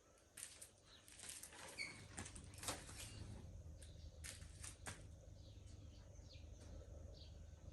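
Near silence with faint scattered clicks and light taps from engine parts being handled, mostly in the first few seconds, over a steady low hum. A short high chirp sounds about two seconds in.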